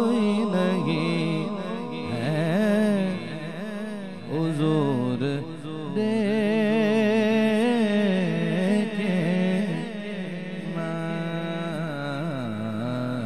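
A man singing a naat into a microphone, drawing out a long wordless melismatic passage whose pitch glides and quavers up and down, with longer held notes toward the end.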